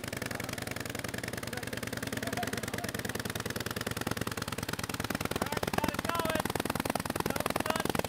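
1915 Harley-Davidson V-twin engine running with a rapid, steady string of firing pulses, growing louder about two thirds of the way through.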